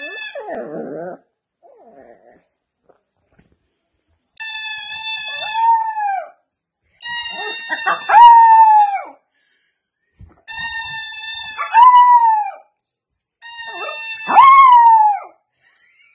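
Puppy howling along with a steady held note: four times a flat, even note sounds and a short howl that rises and then falls follows right behind it.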